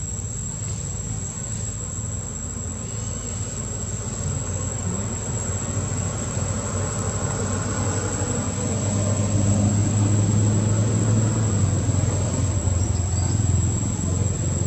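Low rumble of a vehicle engine that grows louder about halfway through, over a steady high-pitched insect drone.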